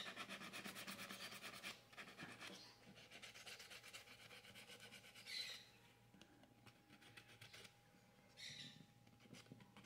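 Faint, rapid back-and-forth rubbing of light hand sanding on a wooden statue, polishing freshly rebuilt toes. The strokes are quick and even for the first couple of seconds, then fade, with two short scrapes later on.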